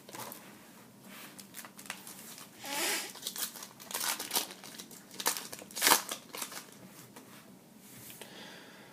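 Foil wrapper of a trading-card pack crinkling and tearing as it is opened and the cards handled, in a string of irregular rustles with a few sharper crackles.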